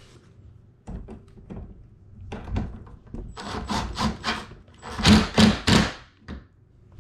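Cordless drill driving bolts into a wooden furniture panel in short bursts, with knocks and rubbing of the wood between them. The loudest bursts come about five seconds in.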